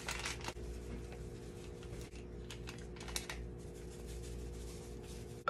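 Light crinkling and clicking of a plastic packet of instant pudding mix being opened and shaken out over a bowl of milk. A faint steady hum underneath.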